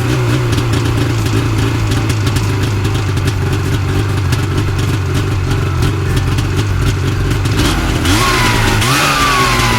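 A vehicle engine sound effect running steadily with a rapid, even pulse, then revving twice near the end, its pitch rising and falling each time.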